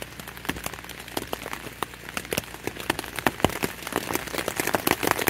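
Raindrops hitting the taut fabric of a single-wall tent, heard from inside: a quick, irregular run of separate sharp taps.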